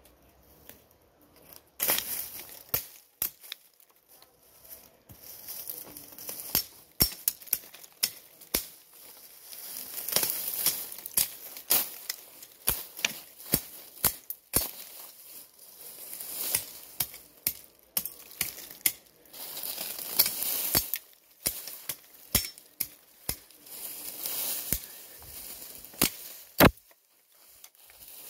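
Machete chopping and scraping through weeds into the soil in irregular sharp strokes, with rustling and tearing as clumps of grass and vines are pulled up by hand.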